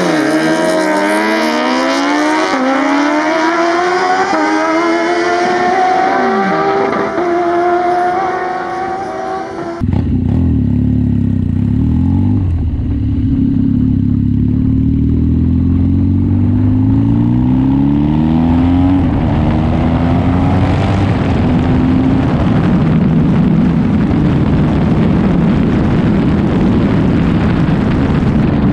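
Two drag-racing motorcycles launch side by side and accelerate hard down the strip, their engines rising in pitch through several gear changes and fading away. After a sudden cut, a BMW R nineT's engine is heard from on the bike as it accelerates through the gears, with wind noise over it.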